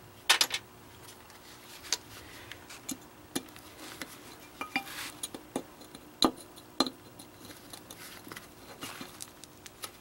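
Scattered metal clicks and clinks as pieces of the broken recoil starter spring are worked out of the starter housing with pliers, with a brief scrape about five seconds in.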